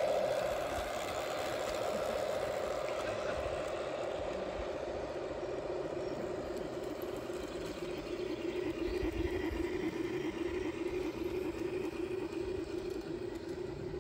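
G-scale model trains running on a garden railway: a steady whine from the locomotives' electric motors and gearing, with wheel noise on the track. The whine shifts to a lower tone over the first few seconds.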